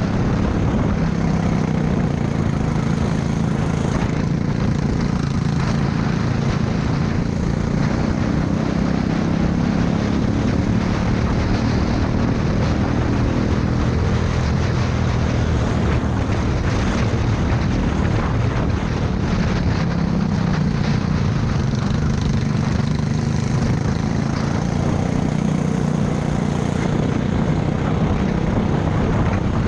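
Go-kart engine running flat out, heard from the driver's seat, its note wavering slightly up and down as the kart goes through corners, over a steady rush of wind and track noise.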